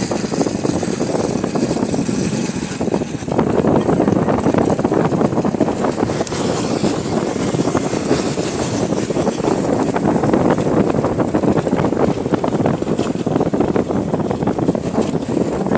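Wind rushing over the microphone together with the running noise of a motorcycle ridden at speed. The rush eases briefly about three seconds in, then comes back louder.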